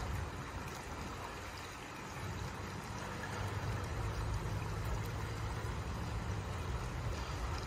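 Water from the pool's sculptural fountain spouts pouring and splashing steadily into the spa, with a low rumble underneath.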